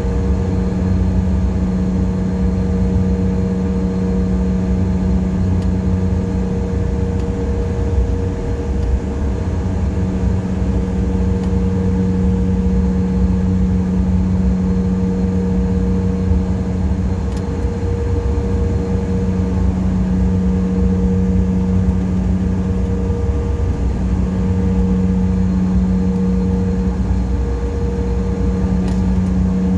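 Cabin noise of a regional jet taxiing on the ground, heard inside the cabin: the jet engines at low power give a steady low rumble with a droning hum that fades and returns every few seconds.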